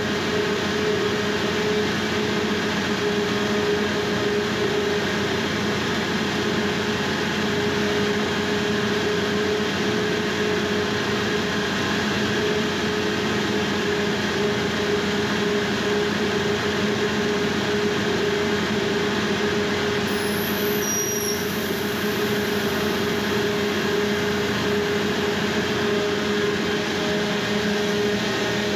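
Steady, loud machinery drone of a ship's engine room, with the heavy fuel oil purifier, a centrifugal separator, running at speed and a constant hum. A brief high whistle sounds about two-thirds of the way through.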